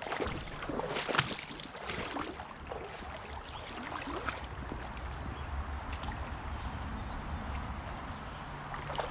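River water flowing and lapping, with a low rumble underneath.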